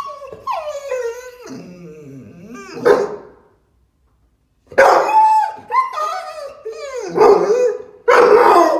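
American Staffordshire Terrier howling and whining in calls that slide down in pitch, broken by a few short, loud barks, with a pause of about a second midway: excited vocalising.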